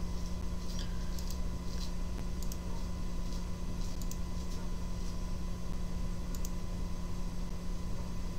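A few light computer-mouse clicks, scattered several seconds apart, over a steady low electrical hum.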